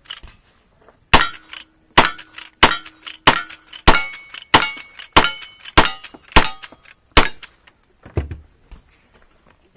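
Ten rapid gunshots from a lever-action rifle, evenly paced a little over half a second apart, several followed by a short metallic ring. A softer thump about 8 seconds in.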